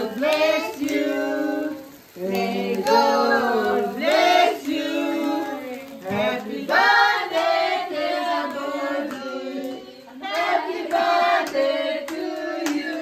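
A family of adults and children singing a birthday song together, with hand clapping.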